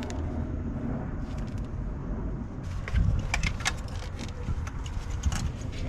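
Clicks and light rattles of a plastic wiring connector and its wires being handled, with a thump about three seconds in, over a steady low rumble.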